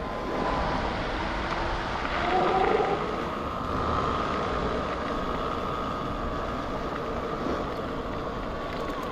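Sur-Ron X electric dirt bike under way: a steady high whine from its electric motor over a constant rushing noise.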